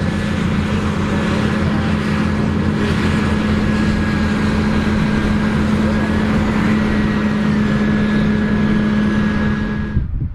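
John Deere 9RX 830 tractor's Cummins X15 diesel engine working hard pulling a disc through the field: a loud, steady drone with a faint high whine over it. It cuts off abruptly near the end.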